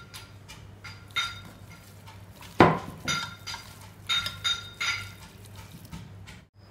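A hand mixing raw meat and spices inside a stainless steel pressure cooker: the steel pot clinks and rings several times as the hand knocks against it, with one louder knock about two and a half seconds in.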